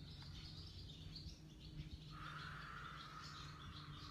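Wild birds faintly chirping and calling, with one long steady high note starting about halfway through, over a low steady background hum.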